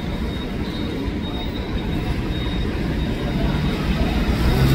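Road traffic: a bus and a passenger van driving past close by, a steady low engine rumble that grows louder near the end.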